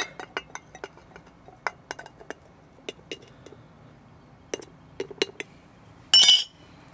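Metal spoon clinking against an empty tin can as thermite powder is spooned in: a string of light, irregular taps. A little after six seconds in comes one loud metallic clatter.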